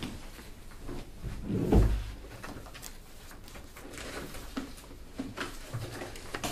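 Small handling noises in a quiet room: scattered light clicks and knocks, with one louder low thump or bump about two seconds in.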